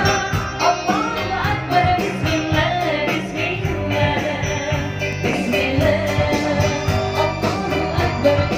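Live qasidah modern band playing through a PA system: a woman singing a winding melody over electric bass, keyboards and a steady beat.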